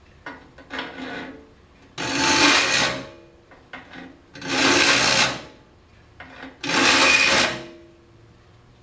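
Hand file pushed across the steel teeth of a Disston D8 rip saw in three long filing strokes, each about a second, a couple of seconds apart, after a few lighter scrapes near the start.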